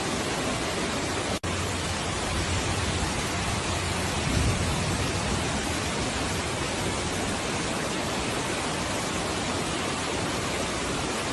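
Steady, dense water noise of a flooding rainstorm, even throughout, with a brief dropout about a second and a half in.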